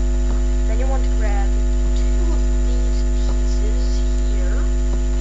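Loud steady electrical mains hum: a deep drone with a ladder of steady higher tones above it, with a few faint clicks.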